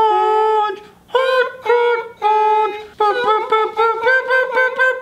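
A man imitating a recorder with his voice, tooting a short tune in a high falsetto: a few held notes, then a quicker run of short notes in the second half.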